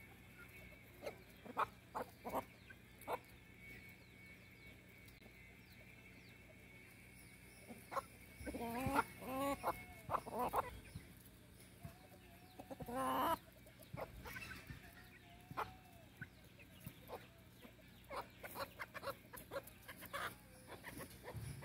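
A flock of backyard chickens clucking as they forage, with short scattered clucks and a run of louder calls about halfway through.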